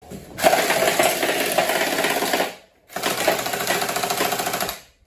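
Electric AK102 gel blaster firing two full-auto bursts of about two seconds each, a rapid mechanical clatter of many shots a second with a short pause between.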